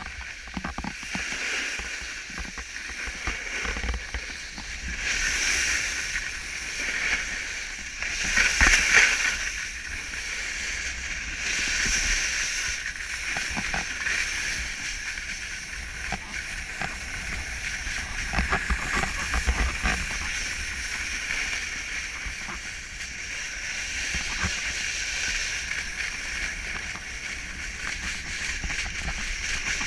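Snow hissing and scraping under a rider sliding downhill, with wind buffeting the camera microphone, swelling and easing as the rider turns.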